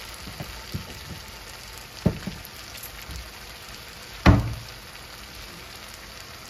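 Onion and tomato masala sizzling steadily in oil in a pan, with two sharp knocks about two and four seconds in, the second the louder.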